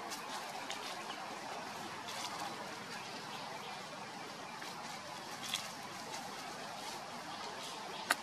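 Steady outdoor background noise with a few brief sharp clicks or rustles, the loudest just before the end; no monkey calls are heard.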